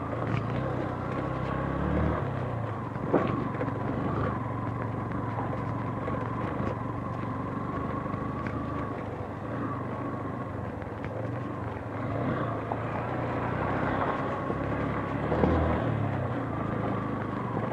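Motorcycle engine running steadily at low throttle while riding over a rough track of loose stones and gravel. Two sharp knocks, about three seconds in and near the end.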